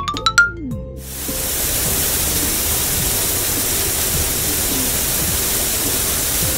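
Cartoon water-spray sound effect: a steady hiss of rushing water from a shower head rinsing foam off, starting about a second in, over light background music. A short rising whistle-like effect ends just before it.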